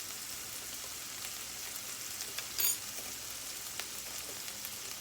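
Chicken tenders frying in a hot pan, a steady high sizzling hiss, with one brief louder noise a little past halfway.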